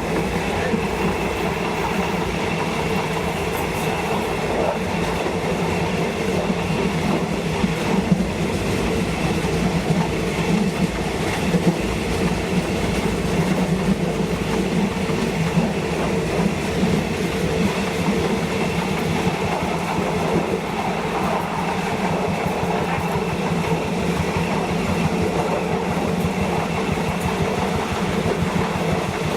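Diesel train running steadily along the track, its wheels clicking over the rail joints under a constant rumble.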